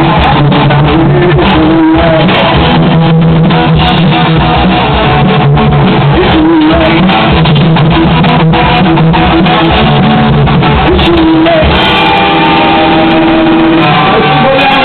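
Loud rock music with guitar and a singing voice.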